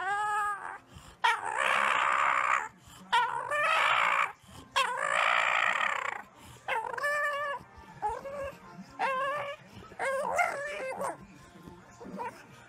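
Bulldog vocalising while lying on its back: a string of howling, whining calls. The first few are long and drawn out, and the later ones are shorter.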